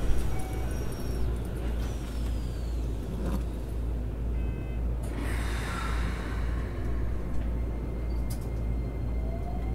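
Keikyu New 1000 series 1800-subseries commuter train running, heard from inside the front car: a steady low rumble of wheels on rail. There is a brief hiss about five seconds in, and a rising traction-motor whine near the end.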